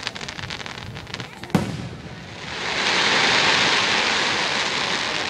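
Aerial fireworks going off: scattered crackles, then one sharp bang about a second and a half in. A second later a loud, dense hissing crackle follows and runs on as a shell's stars spread and burn.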